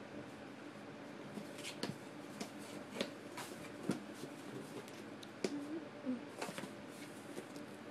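Scattered light scratches, clicks and rustles as a cat shifts about inside a cardboard box, over a faint steady room hum.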